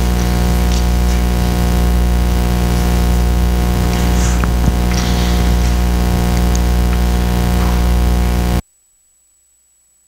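Loud, steady electrical hum with a buzz of many overtones, carried on the audio feed. It cuts off suddenly about eight and a half seconds in, leaving near silence.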